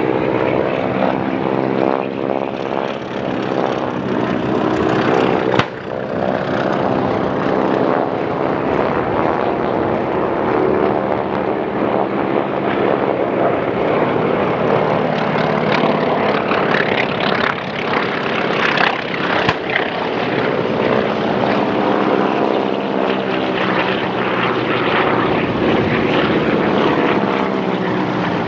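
Several radial-engined propeller airplanes flying low over the field, their engines droning together, the pitch sliding as they pass. A single sharp crack about five and a half seconds in.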